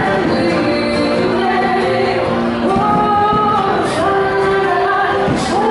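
Music with a woman singing long held notes, loud and steady.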